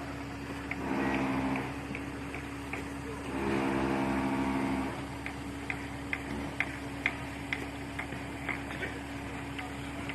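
Construction-site background noise: a steady hum, two short pitched sounds in the first half, and light ticks about twice a second from early on.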